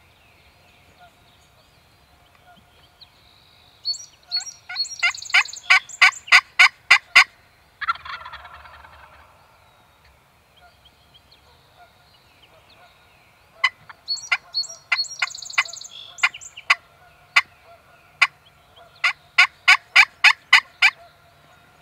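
Turkey yelps in three runs of sharp, evenly spaced notes, about four a second, with a wild turkey gobble rolling out about eight seconds in, just after the first run.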